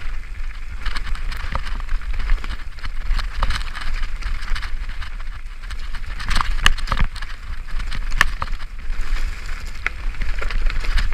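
Mountain bike descending a dirt forest trail at speed, heard from the handlebars: a steady hiss of tyres over dirt and leaves with a low rumble of wind on the microphone, broken by many sharp clicks and rattles of the bike over rough ground, thickest about six to seven seconds in.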